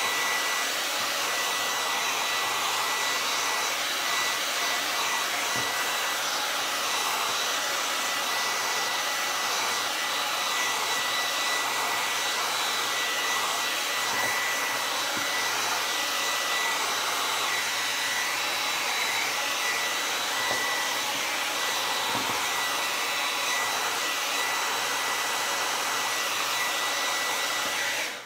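Handheld hair dryer blowing steadily: an even rush of air with a thin high whine running through it. It is switched off right at the end.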